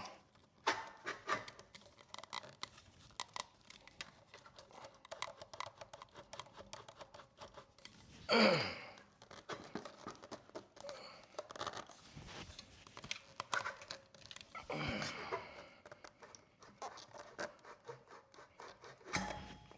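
Slip-on exhaust muffler being twisted and worked off its pipe, with scattered light clicks and scraping. A louder falling sound comes about eight seconds in and another around fifteen seconds.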